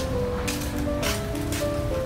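Background music: a melody of held notes, with a light beat about every half second.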